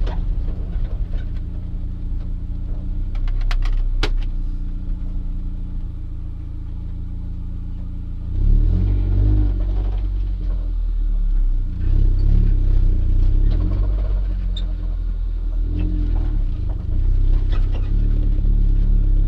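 Turbocharged 1.8-litre four-cylinder engine of a 1994 Mazda Miata running under way with road drone, the engine note swelling and rising in pitch as it is accelerated three times, about halfway in, around two-thirds in and near the end.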